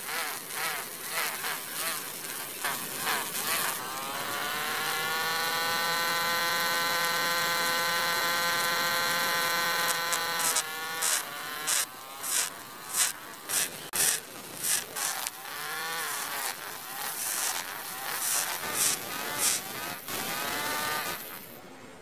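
Small electric toy motor whining as it drives a rubber-band belt to a miniature grinding wheel, rising in pitch about four seconds in and then running steady. From about eleven seconds a small sickle blade is pressed against the spinning wheel in short scraping strokes, about two a second.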